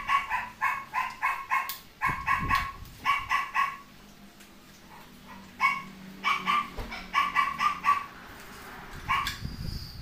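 A dog barking in quick runs of short yaps, several a second, with brief pauses between runs.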